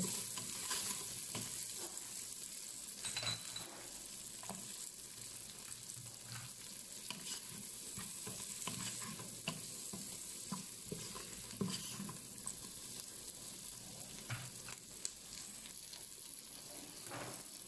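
Sliced onions sizzling and frying in hot oil in the pot of a Noxxa electric cooker, stirred with a wooden spatula that scrapes and taps against the pot now and then.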